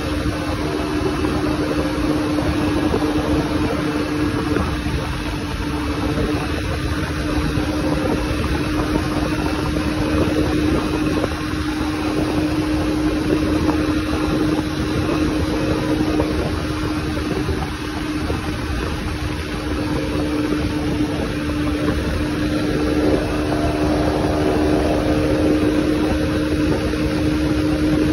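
Motorcycle riding at a steady cruising speed: the engine holds one even drone over a steady rushing noise, without revving up or down.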